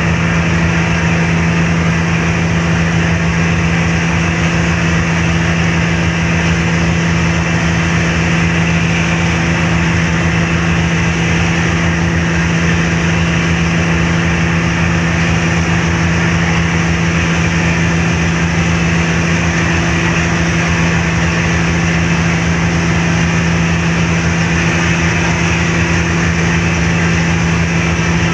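Car ferry's engines running steadily under way, a constant low hum with an even rushing noise of wind and water over it.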